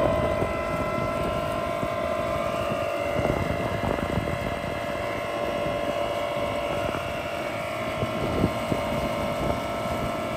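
Hangkai 48V 1200W electric outboard motor running at a steady speed: a constant whine of one held pitch over the rush of water and wind on the microphone.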